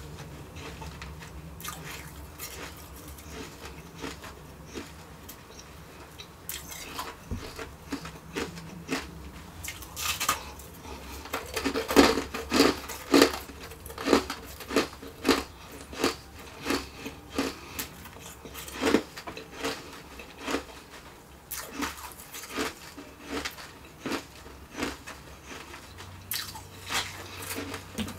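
Close-miked chewing of refrozen shaved ice: a run of sharp crunches as the ice is bitten and ground between the teeth. The crunches are soft and sparse at first, then come loud and fast, about two a second, from about ten seconds in, and slacken near the end.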